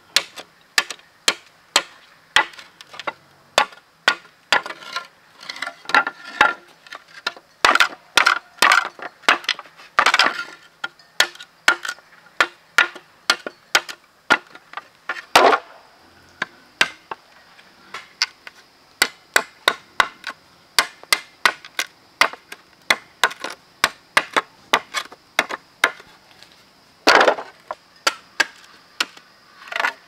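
Machete blade chopping into split green bamboo halves, a long run of sharp wooden knocks at uneven spacing, roughly one or two a second with some quick flurries.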